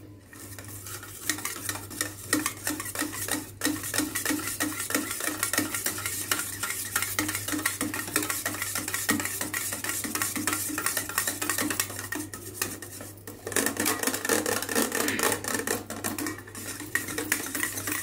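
Wire whisk beating curd in a stainless steel bowl: rapid, steady scraping and clinking of the wires against the metal, whipping the curd smooth. It pauses briefly twice and gets louder for a couple of seconds after the second pause.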